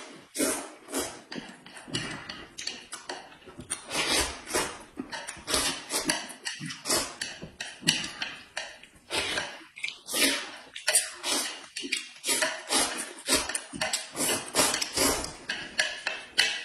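Noodles being slurped and chewed: a quick, uneven run of wet sucking and smacking mouth noises, several a second.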